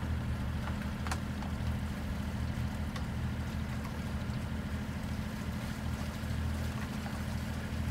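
A sailboat's inboard engine running steadily, a low even drone, with a couple of faint clicks about one and three seconds in.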